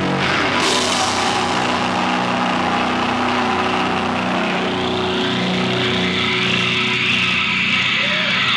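Held, distorted electric guitar and bass chord ringing out through the amplifiers as a steady loud drone with no drumbeat, the end of a live metal song. Near the end, the first rising whoops from the crowd come in.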